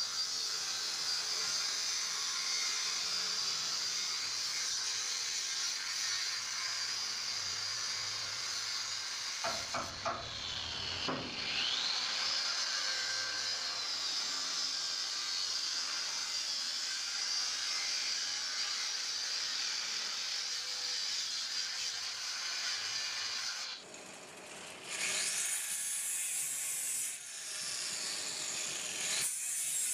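Electric angle grinder with a thin disc cutting into a steel rail, a steady high whine and hiss. Around ten seconds in the pitch dips and climbs again. Near the end the grinder stops and spins back up a couple of times.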